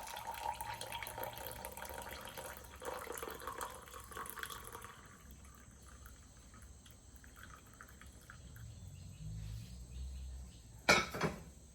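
Hot clove and cinnamon water being poured from a pot into a cup, running for about five seconds and then trailing off. A sharp knock comes near the end.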